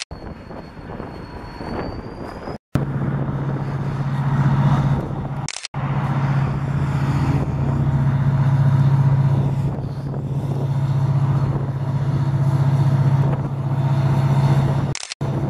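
Diesel locomotive engine running steadily, a strong low drone, as it hauls a string of tank cars through a rail yard. The first few seconds are a rushing noise, and the sound drops out briefly three times.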